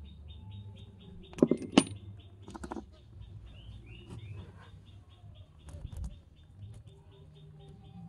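Small glass bottles clicking as they are handled: two sharp clicks about a second and a half in are the loudest sounds, with softer clicks later. Under them runs a steady high chirping at about five chirps a second, over a low hum.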